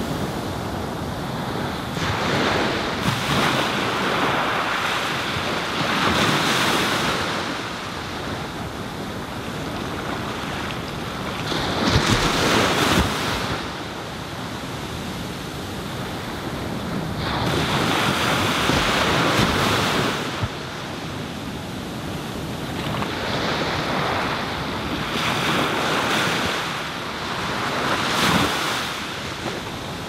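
Small waves breaking and washing up a sandy beach, a surge every few seconds, the biggest about halfway through.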